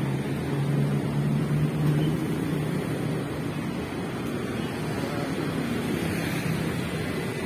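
Street traffic: a vehicle engine hums low, loudest about two seconds in, over a steady rush of road noise.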